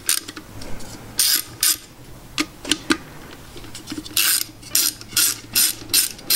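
Socket ratchet clicking while undoing the 8mm nuts on the back of an alternator housing. There are a few short bursts and clicks early on, then from about four seconds in an even run of ratchet strokes, two or three a second.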